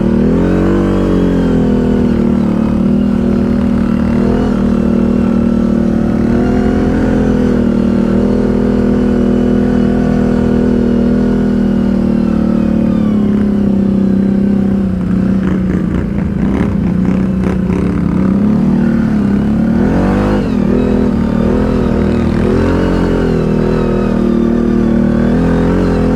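ATV engine running loud through its exhaust while riding, the revs holding steady for a while and then dropping and picking up again several times in the second half.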